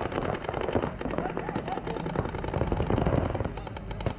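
Several paintball markers firing rapid streams of shots at once, a dense, continuous fast popping with no pause.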